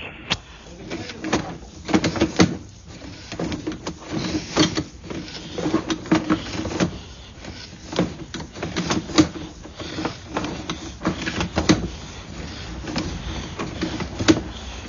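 A sewer inspection camera being pulled back through the pipe on its push cable: irregular knocks and clatter, with a faint steady hum underneath.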